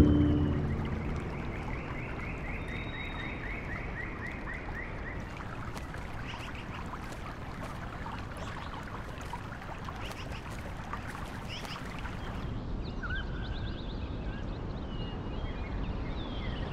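Nature ambience: a steady soft wash like water and wind, after a louder low rumble dies away in the first second. Birds are calling over it: a quick chirping trill of about four chirps a second in the first few seconds, and short scattered calls later on.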